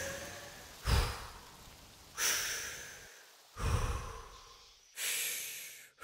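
A young man's slow, deep, deliberate breathing, four breaths in and out about a second and a half apart: paced breathing practice to stay calm and alert.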